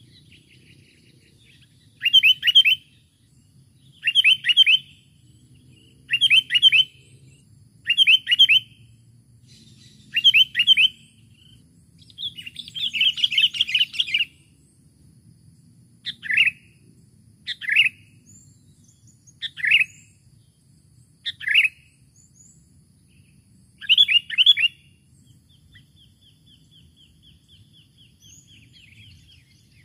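Sooty-headed bulbul (kutilang) calling: loud, short, scratchy call phrases about every two seconds, with a longer chattering burst near the middle and fainter rapid twittering near the end. It is a lure call meant to draw in a rival bulbul.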